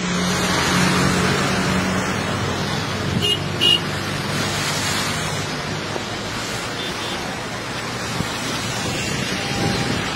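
Steady rushing of heavy rain and floodwater, with road traffic running through it and two short horn beeps about three and a half seconds in.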